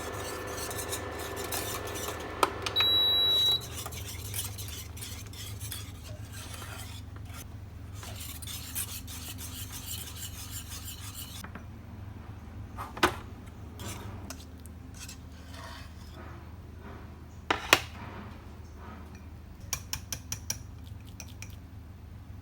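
Kitchen utensils and dishware: scraping and stirring against a bowl, with sharp clinks later on. A short electronic beep sounds about three seconds in.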